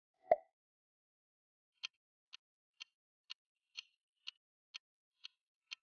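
A single short sound effect as the next quiz question appears. About two seconds later a countdown timer starts ticking evenly like a clock, about twice a second.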